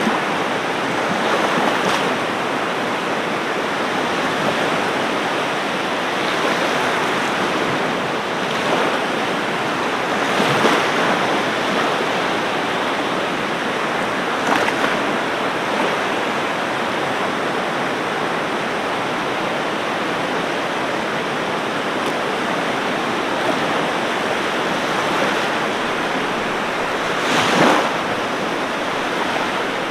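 Ocean surf washing onto a beach: a steady rushing hiss of water with a few louder breaking waves, the biggest near the end.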